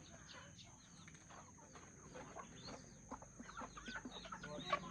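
A flock of desi chickens clucking: many short calls overlapping, growing busier and a little louder over the last couple of seconds.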